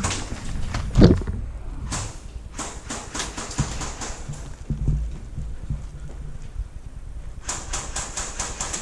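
A player moving about with gear knocking and rustling, then a quick burst from an airsoft rifle near the end: a rapid run of sharp cracks, about eight a second, for just over a second.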